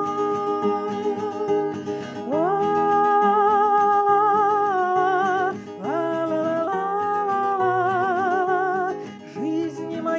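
A woman singing long held notes with vibrato, each sliding up into pitch, over plucked acoustic guitar accompaniment.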